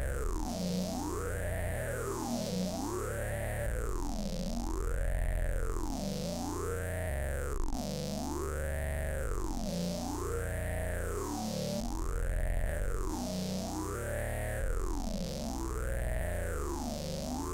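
Synthesized electronic sound from an AudioMulch patch: a pitched tone sweeps up and down in smooth arcs about every two seconds over a low, rumbling bass drone.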